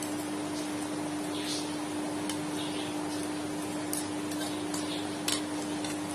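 A few faint, sharp clicks of a utensil against a dish, over a steady low hum.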